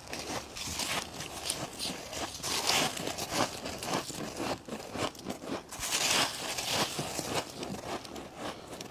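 Close-miked biting and crunching of frozen freezer frost ice: a dense, irregular run of crisp crunches and crackles, loudest about a third of the way in and again about two-thirds through.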